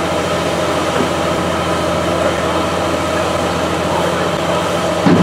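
Heavy truck engine running at a steady high idle: a constant drone with a hissing layer, typical of a fire engine's pump supplying a charged hose line.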